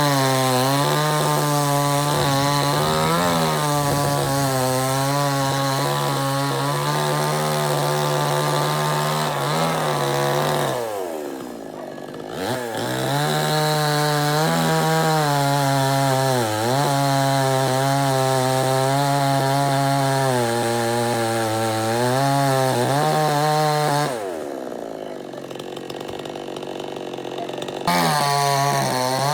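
Chainsaw running at high revs, its pitch dipping and recovering again and again as the chain bites into wood. Twice, about a third of the way in and again near the end, the throttle is let off and the engine winds down toward idle for a few seconds before revving back up.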